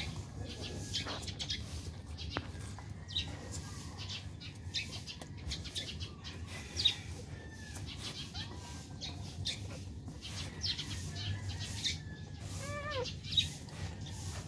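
Newborn Shih Tzu puppies squeaking as they nurse: many short, high squeaks and soft clicks, with one longer wavering whine near the end.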